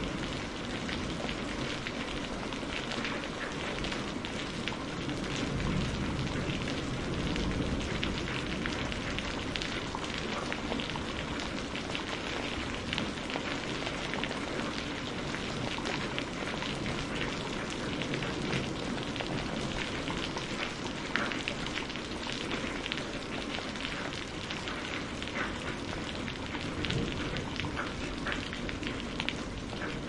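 Steady rain falling on surfaces, a continuous hiss dotted with the sharp ticks of individual drops.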